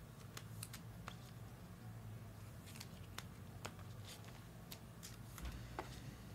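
Faint, scattered clicks and light taps of baseball cards being handled, picked up and set down on a tabletop, over a steady low hum.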